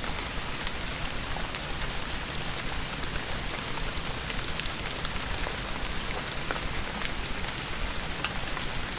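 Steady rain, with many separate drop hits sounding over the even hiss of the downpour.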